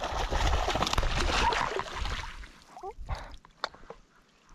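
Water splashing and sloshing close by for about two seconds, then a few light clicks and knocks as it dies down.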